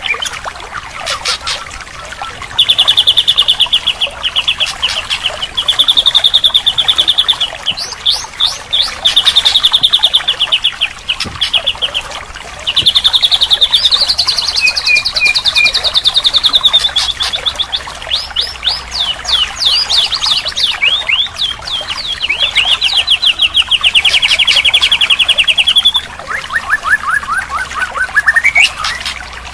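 White-rumped shama (murai batu) singing: long, fast trills of two to three seconds each, alternating with runs of short sharp chirps.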